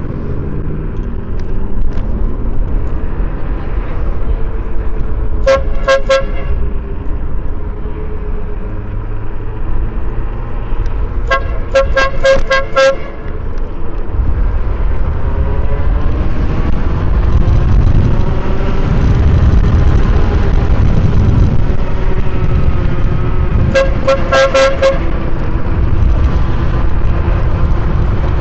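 Dual electric air horns on a Yume Predator electric scooter sounding in three bursts of quick short toots, a few seconds apart, the middle burst the longest. A steady low rumble runs underneath.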